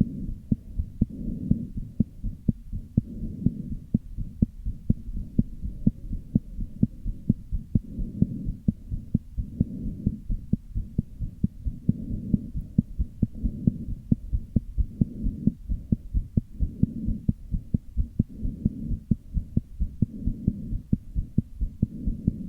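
A heart beating, heard close up: a rapid run of sharp low thuds, with a low whooshing that swells and fades every couple of seconds. The uploader takes it for a heart murmur with arrhythmia.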